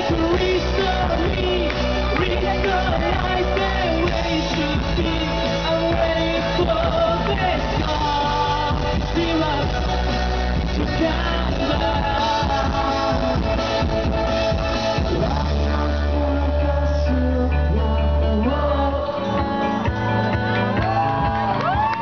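Pop-rock song performed live: a lead voice singing over a full band with heavy bass. About nineteen seconds in, a long low note ends and the bass drops out, and voices shout briefly near the end.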